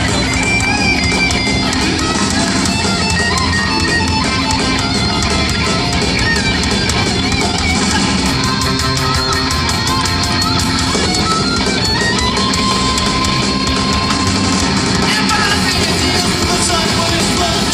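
Live rock band playing loud, with electric guitars, bass and drums through an arena PA, heard from among the audience.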